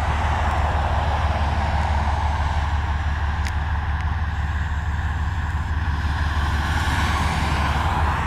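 GE B23-7 diesel locomotive approaching from a distance, its engine a steady low rumble, mixed with the hiss of road traffic on the road alongside.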